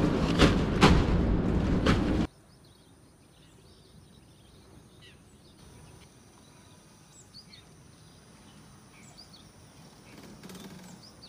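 Truck cab road noise with a few knocks for about two seconds, then cuts off abruptly to a quiet background with faint birds chirping now and then.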